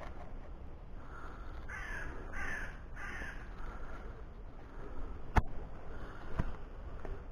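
A crow cawing three times in quick succession, harsh and hoarse. Then two sharp clicks about a second apart, the loudest sounds.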